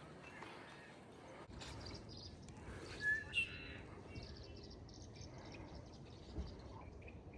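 Outdoor ambience with two short, loud bird chirps about three seconds in, followed by faint rapid high-pitched ticking.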